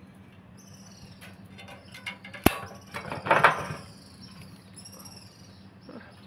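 A single sharp snip, like pruning shears cutting through a branch, about two and a half seconds in, followed by a short burst of leaves and twigs rustling as the branch is handled. Faint high chirps come and go in the background.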